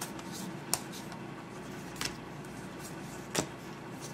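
Tarot cards being slid off the deck and laid down one at a time: a few short card snaps, a second or so apart, over a faint steady hiss.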